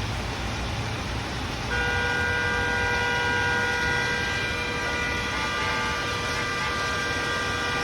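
Steady hiss of rain and road traffic; about two seconds in, a vehicle horn starts one long steady blast, held for about six seconds.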